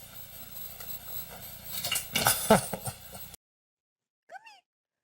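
A clatter of several quick clinks and knocks, as of hard objects striking each other, about two seconds in, ending in a sudden cut to silence; then one short, high chirp-like call near the end.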